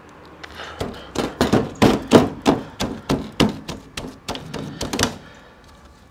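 A gloved hand patting raw, rub-coated chicken pieces on a wire rack, pressing the dry rub into the skin: a quick run of soft slaps and thuds, about three or four a second. They start about a second in and stop about five seconds in.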